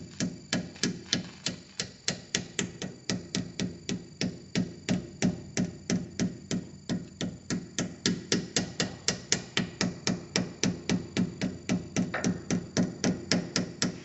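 Hammer tapping a new pinion seal into the rear differential housing of a Chevy Tahoe: light, even metal taps at about four a second, driving the seal into its bore.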